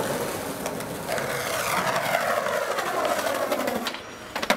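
A passing vehicle whose pitch falls steadily over about three seconds, then a single sharp skateboard clack near the end.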